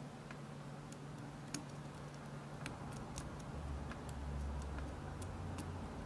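Faint, irregular light clicks of a steel hook pick probing the pin stacks of a 7-pin Assa Abloy hospitality lock cylinder under tension, roughly one or two clicks a second.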